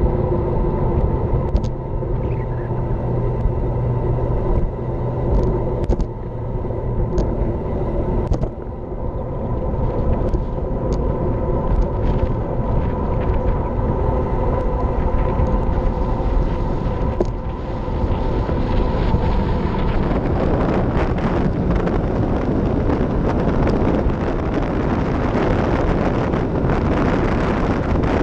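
Wind rushing over an action camera's microphone together with road noise from a bicycle riding at speed, with a steady hum underneath and a few sharp clicks in the first half. About twenty seconds in the rushing grows fuller and brighter.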